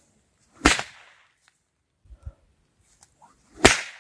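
A long pecut whip cracked twice, about three seconds apart: two sharp cracks, the second near the end.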